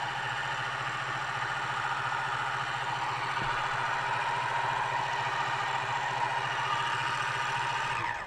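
The small electric motor of a Rollie Pollie magnetic separator spins the magnet under a gold pan with a steady hum. Near the end it begins to wind down, falling in pitch, as it is switched off at its controller.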